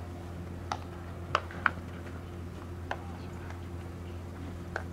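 Sharp cracks of baseball fielding practice: balls smacking into leather gloves and off a fungo bat, five in all, the two loudest close together about a second and a half in, over a steady low hum.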